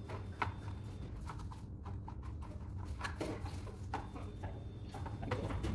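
Scattered light clicks and taps, a few a second and unevenly spaced, over a steady low hum: handling noise from hands working along a car's lower door panel.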